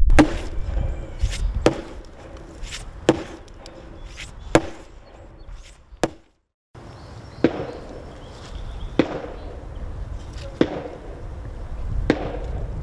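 Sledgehammer pounding an ash log to loosen its growth rings into basket splints: heavy wooden blows, evenly spaced about every one and a half seconds, broken by a brief silence about six seconds in.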